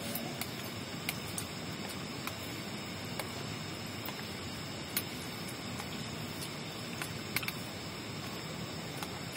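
Steady hiss of rain falling around the tent, with scattered sharp drips tapping, and a faint high insect drone underneath.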